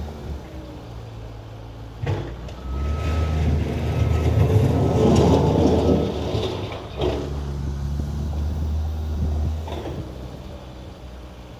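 Skid steer engine running steadily, with knocks about 2 and 7 seconds in. Between them a loud rough scraping noise as the machine works the snow, and a backup alarm beeping on and off.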